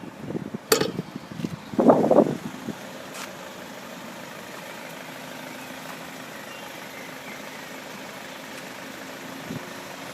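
An engine idling steadily, with wind buffeting the microphone in the first couple of seconds.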